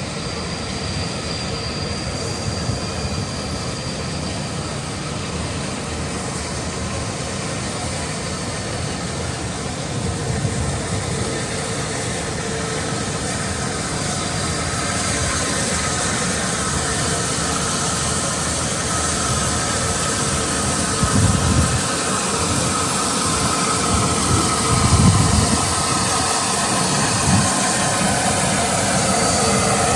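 A train approaching along the platform, its steady running and rail noise growing slowly louder, with a few heavier low rumbles in the second half.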